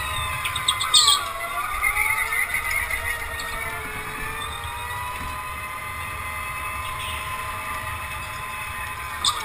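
Go-kart driven hard around a track, its motor running with a steady whine whose pitch drops sharply about a second in as it slows into a corner, then climbs back as it accelerates. A short tyre squeal about a second in.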